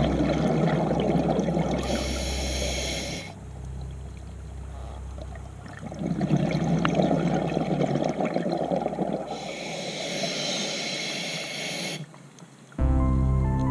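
A scuba diver breathing through a regulator underwater: two breath cycles, each a brief hiss and a long rumble of exhaled bubbles. Background music comes back in near the end.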